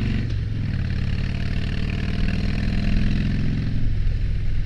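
2007 Harley-Davidson Dyna Street Bob's Twin Cam 96 V-twin running under way on a winding road. The engine note dips briefly near the start, then holds steady.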